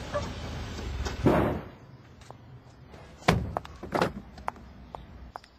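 Car door slamming shut: a heavy thud about a second in, then two sharp knocks, followed by a string of light taps. A steady low rumble stops about a second and a half in.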